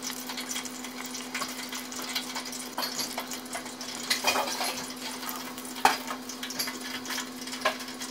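Hot oil crackling and sizzling in an electric deep fryer as a tempura- and panko-coated sushi roll fries, over a steady low hum. A few sharp clicks stand out, the loudest about six seconds in.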